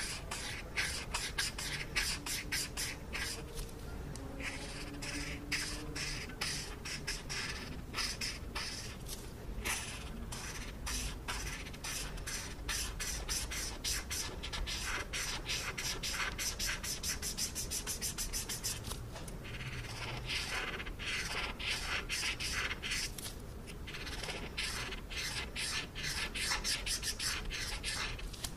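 Felt-tip marker scratching across paper in quick back-and-forth colouring strokes, several a second, with a few short pauses as the pen is lifted and moved.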